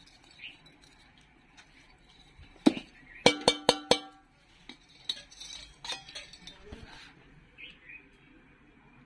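Steel bowl knocked against the rim of a metal cooking pot: one knock, then a quick run of about five ringing clinks, followed by lighter metal clatter.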